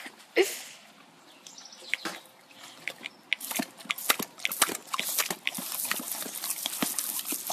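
Boxer dogs snapping and snorting at a spray of water from a hose, with wet splashing and a quick, irregular run of clicks. It thins out for a couple of seconds about a second in, then picks up again.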